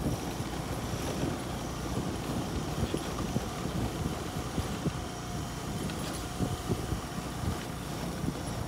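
A vehicle driving over a rough unpaved road: a steady low rumble with frequent irregular knocks and jolts from the bumps.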